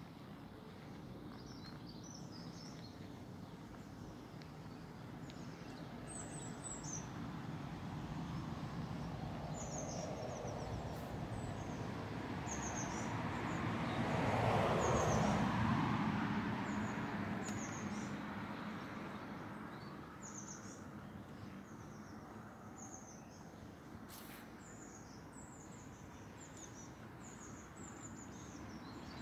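Small birds chirping in short, high, repeated calls, while a vehicle passes by in the middle, its noise swelling and fading over several seconds.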